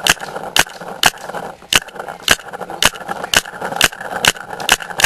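Planet Eclipse Geo 3.5 paintball marker firing single shots at a steady pace, about two a second, each a short, sharp report.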